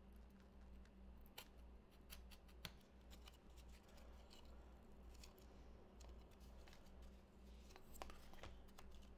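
Faint scraping and scattered small clicks of a utility knife blade trimming the edge of a piece of corrugated cardboard, over a low steady hum.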